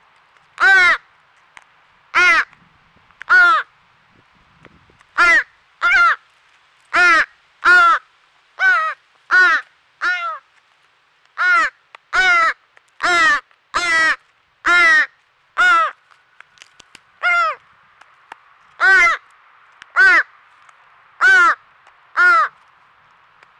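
A fledgling American crow's begging calls: harsh, nasal caws repeated over and over at about one a second, each call rising and then falling in pitch, with a brief lull a little past the middle.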